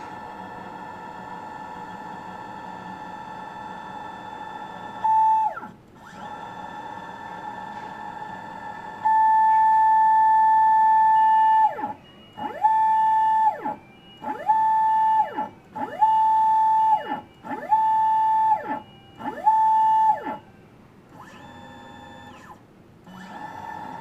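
A stage drive motor whines at a steady high pitch. About nine seconds in it gets louder for a couple of seconds, then runs in six short bursts, each sweeping up in pitch as it starts and down as it stops. This is the strange motor noise reported from an intermediate stage that makes the sound but does not move.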